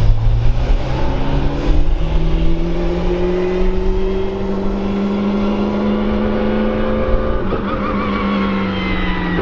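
McLaren 720S GT3 EVO race car's twin-turbo V8 pulling away at low speed, its note rising slowly and steadily, with a brief stutter near the end.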